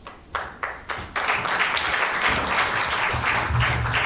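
A few single claps, then a congregation breaks into sustained applause about a second in.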